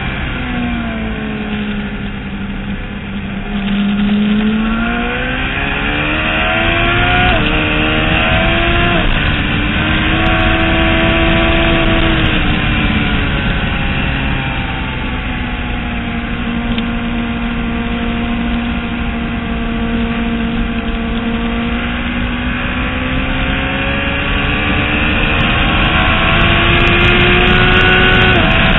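Motorcycle engine heard from onboard on a race track, its pitch dropping under braking early on, then climbing again with gear-change steps about seven and nine seconds in, holding a steady note through the middle and rising again near the end, over steady wind rush.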